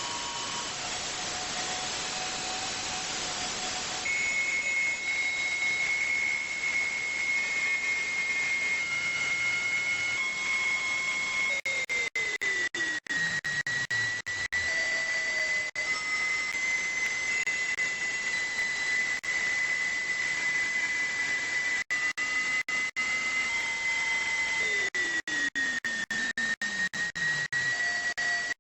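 Weird noise received on 146.328 MHz through a radio receiver: hiss with a steady high whistle that comes in about four seconds in and wavers slightly. Short beeps at changing pitches, a couple of slow falling sweeps and frequent clicking dropouts run through it.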